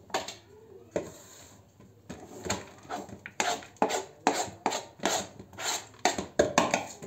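Chopped greens being scraped off a round cutting board into a plastic tub: a couple of knocks as the board is handled, then a run of short rough scrapes, about two a second.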